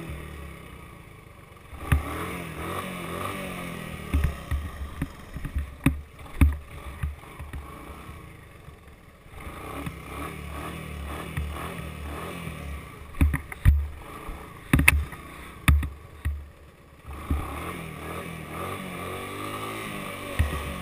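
Honda three-wheeler's single-cylinder engine revving up and dropping back again and again, heard close up from the handlebars, with sharp knocks as the machine jolts over the rough grass.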